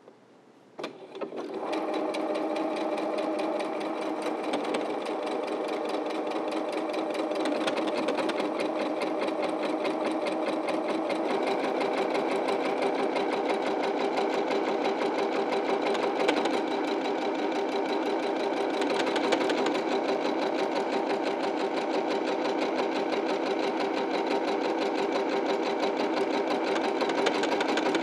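EverSewn Sparrow 25 computerized sewing machine sewing a one-step buttonhole in close-set zigzag stitches, started with its start button. After a click about a second in, it runs at a steady rapid stitching rate, its hum shifting slightly partway through, and stops at the very end.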